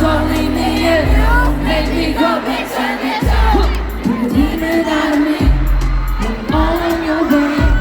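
Live pop music played loud over a PA, with a heavy pulsing bass and gliding sung melody lines, and a crowd cheering and singing along.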